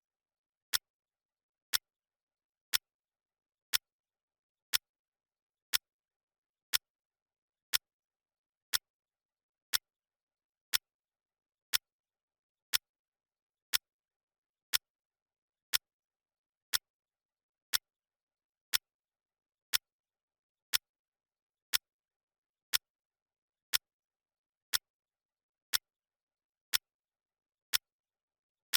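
Clock ticking: a single sharp tick about once a second, evenly spaced, with silence between the ticks.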